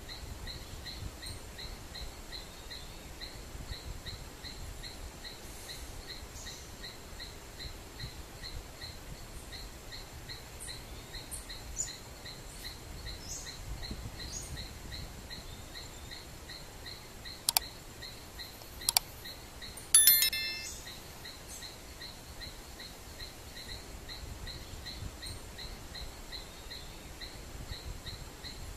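Mangrove swamp ambience: a steady rhythmic chirping at about three pulses a second, with two sharp clicks and a brief rattling call about twenty seconds in.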